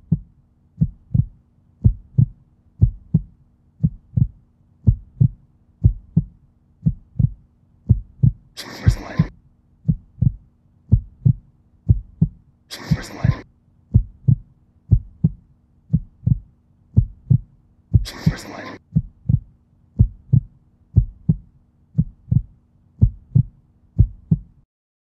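Heartbeat sound effect: a steady lub-dub beating about once a second over a low hum. Three short breathy sounds come about nine, thirteen and eighteen seconds in. Everything cuts off suddenly just before the end.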